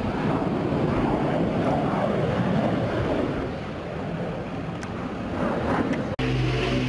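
Wind buffeting the microphone: a steady rushing noise. Near the end it cuts off abruptly and gives way to a steady low hum.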